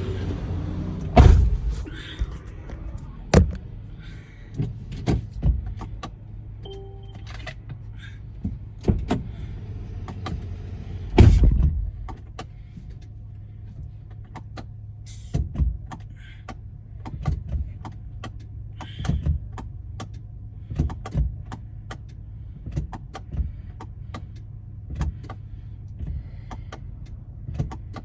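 Irregular clicks and knocks, two of them loud, about a second in and about eleven seconds in, over a steady low hum in a vehicle.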